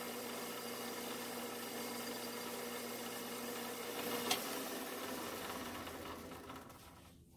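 Metal lathe running with a steady motor hum. A sharp click comes about four seconds in; then the hum's tone drops away and the sound fades out as the spindle winds down.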